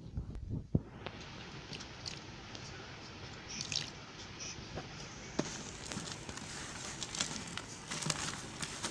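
Soft soap being worked by hand, giving scattered crackly, squishing and crunching sounds with small clicks that grow denser after about five seconds.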